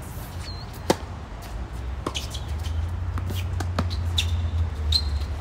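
Tennis racket striking the ball on a serve: one sharp pop about a second in, followed by several fainter knocks of the rally. A steady low rumble runs underneath.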